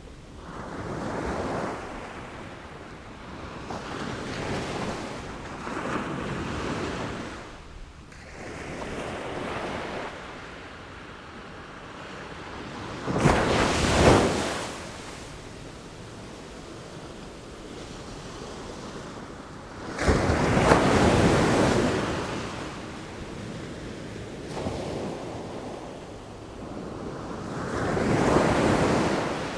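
Sea waves breaking and washing in, a string of surges that each swell and fade over a few seconds. The loudest break comes suddenly about halfway through, and another about two-thirds of the way in.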